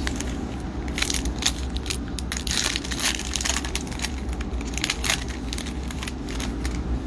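Foil trading-card pack wrapper being torn open and crinkled: a rapid run of sharp crackles, densest about a second in and again around five seconds in.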